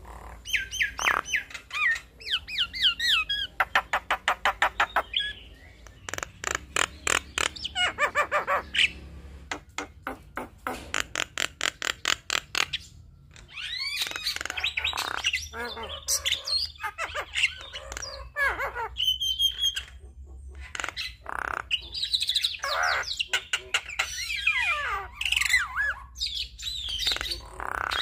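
Javan myna (jalak kebo) in full song: rattling trains of rapid clicks, whistled notes that slide up and down, and harsh squawking chatter, broken by brief pauses.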